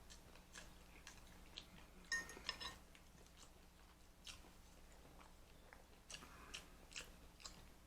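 Faint eating sounds: quiet chewing with scattered small sharp clicks of a utensil or food, a short run of them about two seconds in.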